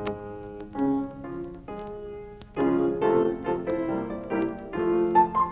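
Solo piano music, a melody of struck notes that grows louder and fuller about two and a half seconds in.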